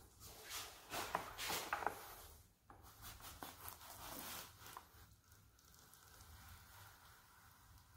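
Faint handling sounds of a blue plastic bucket of freshly mixed wet mortar being lifted and tipped: soft scrapes, knocks and the mix shifting inside, mostly in the first half.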